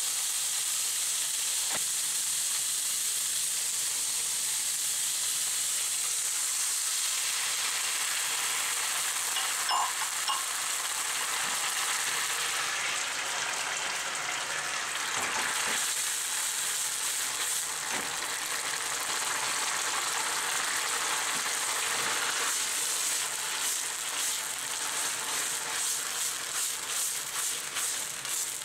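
Tofu cubes and sliced leek with ginger sizzling steadily in oil in a frying pan over high heat. In the last several seconds the pan is stirred and tossed, adding a quick rattle and scrape over the sizzle.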